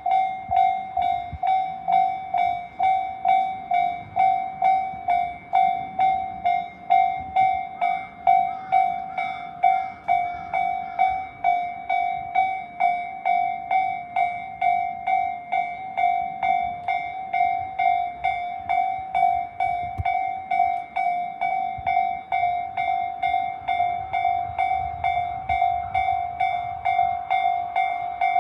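Japanese railroad crossing warning signal ringing its repeated two-per-second clang, an even, steady pulse of one high tone.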